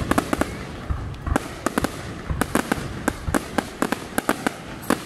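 Aerial fireworks display: shells bursting overhead in a steady run of sharp bangs and crackles, coming in rapid, irregular clusters.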